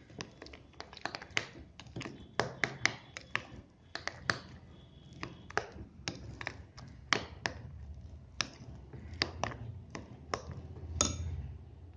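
A spoon clicking and tapping irregularly against a bowl as a thick gram-flour pakoda batter is stirred and beaten, with a brighter ringing click near the end.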